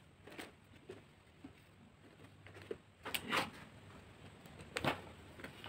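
A box holding a set of mugs being opened by hand: a few scattered short scrapes and knocks, the loudest just after three seconds in.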